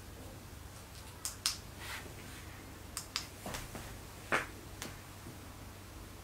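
Handling noise from a handheld camera gimbal: about seven sharp clicks and knocks at uneven times, some in close pairs, the loudest about four seconds in, over a low steady hum.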